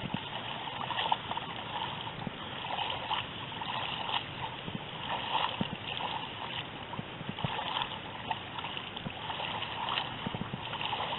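Shallow river water splashing and sloshing in irregular bursts over a steady rush of moving water.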